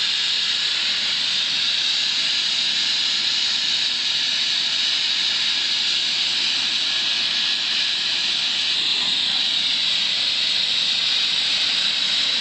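Air ambulance helicopter's turbine engines running on the ground before lift-off: a steady, high-pitched whine and hiss that holds unchanged.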